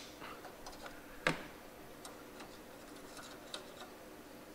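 Light clicks and taps from hand work on a caster camber plate at the strut tower: one sharp click about a second in, then a few faint ticks.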